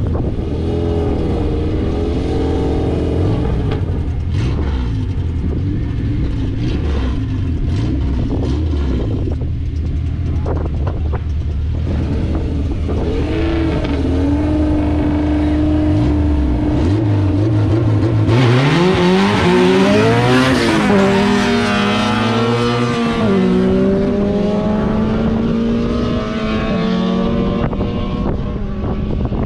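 A car engine running at a low steady note, then revving up with rising pitch a little past halfway and settling into a higher steady note.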